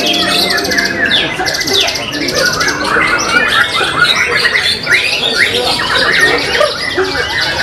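White-rumped shamas (murai batu) singing loud, rapid, varied phrases without a break, several caged birds overlapping at once.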